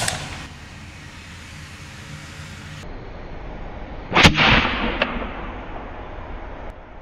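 Homemade soup-can combustion cannon firing a tennis ball with a sharp bang. One bang sits right at the start and a second, louder one with a short fading tail comes about four seconds in, followed by a small click.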